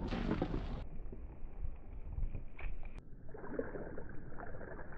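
Ball rolling along a wooden-board track, a steady rumble with light rattles. The sound turns duller about a second in, and a single sharp click comes near the middle.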